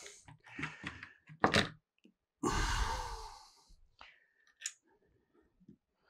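Light clicks and taps of a computer motherboard being handled and set down on a rubber desk mat, with one sharper click about one and a half seconds in. A breathy sigh lasting about a second comes near the middle.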